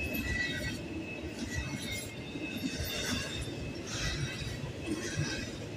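Double-stack intermodal container cars rolling past on the rails: a steady rumble of steel wheels with irregular metallic clanks from the cars. A high wheel squeal fades out within the first second.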